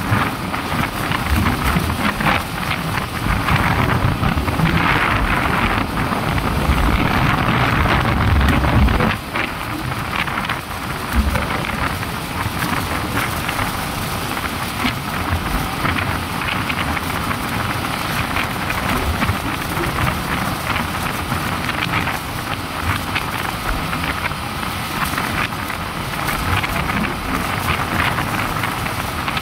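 Wind buffeting the microphone over a motorcycle running at road speed, with tyre and road noise. It is louder for about the first nine seconds, then eases a little.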